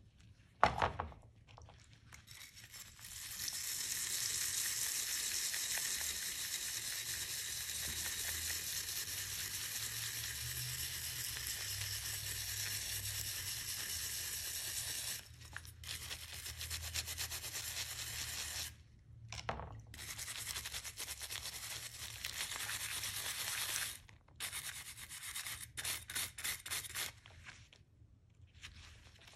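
Wire brush scrubbing a wet, rusty metal bottle opener after an overnight soak, in steady back-and-forth strokes with a few short pauses, turning to quicker separate strokes near the end. A sharp knock about a second in, before the scrubbing starts.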